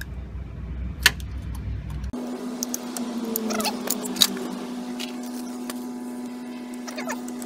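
Metal hand tool clicking and scraping against a rusty VW T4 track rod end ball joint, with a sharp click about a second in and a louder one about four seconds in, over a steady background hum.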